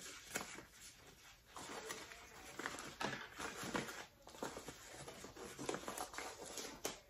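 Thin plastic packing sleeve rustling and crinkling in irregular bursts as a small camera is handled and wrapped in it.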